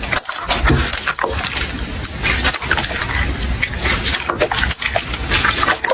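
Slime being squeezed and poked by hand: a dense run of wet squelches and small crackling pops.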